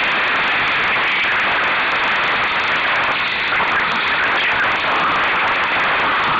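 Steady rushing noise of wind on the microphone and water along the hull of a sailing dinghy under way on choppy water.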